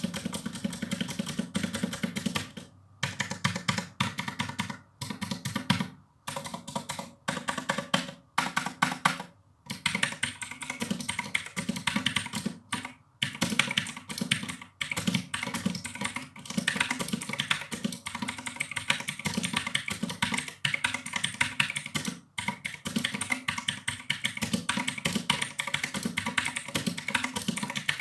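Armageddon MKA-2C mechanical keyboard being typed on fast, a dense clatter of key clicks in runs of a few seconds with brief pauses between them.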